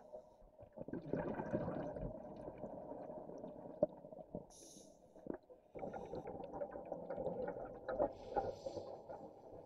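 Muffled underwater rumbling and bubbling with scattered clicks and knocks, heard through a waterproof camera housing, in two longer surges. It cuts off suddenly for a moment a little over halfway through.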